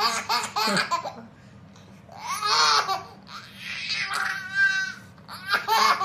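A toddler laughing in several high-pitched bursts, with short pauses between them.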